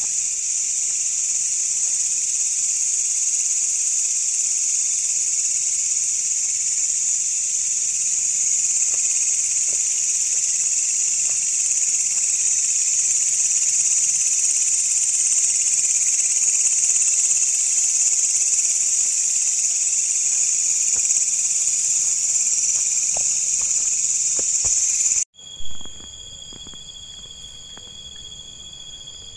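Dense, steady, shrill chorus of night insects. About 25 seconds in it cuts off abruptly with a brief knock, and a quieter chorus of several distinct steady high-pitched tones takes over.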